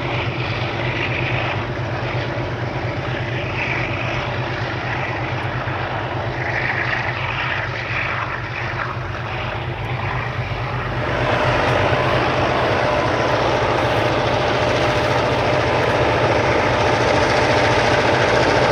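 Diesel-electric locomotives working hard as they climb a steep grade with a heavy train: a steady, low engine drone. About eleven seconds in it grows louder and nearer, with a steady whine over it.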